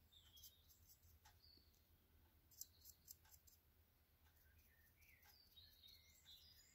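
Near silence: faint room tone with a low hum, a few faint ticks about halfway through, and faint high chirps near the end.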